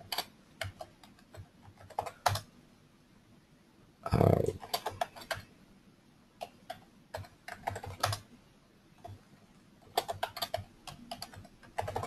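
Computer keyboard typing in several short bursts of key clicks as passwords are entered at a command prompt, with a brief louder low sound about four seconds in.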